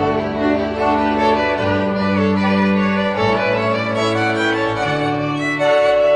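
Background music of bowed strings, playing long held notes that change every second or two.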